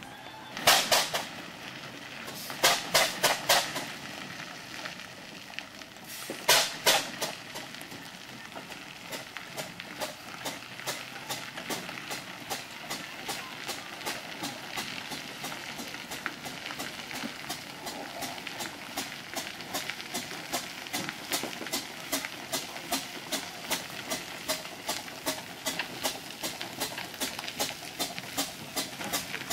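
Steam traction engine under way, its exhaust chuffing in a steady quick beat of about three a second, with a few louder exhaust blasts in the first seven seconds.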